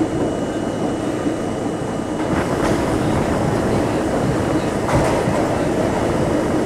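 Subway train running through a tunnel, heard from on board: a steady rumble of wheels on rail that grows louder about two seconds in, with a couple of sharp knocks from the wheels.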